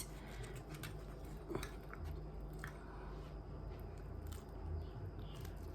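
Faint chewing and biting of a chicken cheeseburger, with scattered soft mouth clicks.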